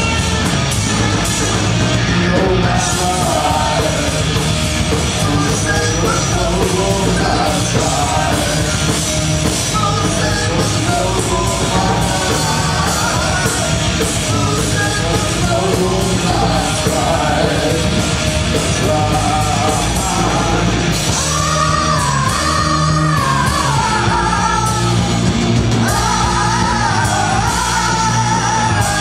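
Horror punk rock band playing live and loud: distorted electric guitar and drums, with a shouted, sung lead vocal that comes through more strongly in the second half.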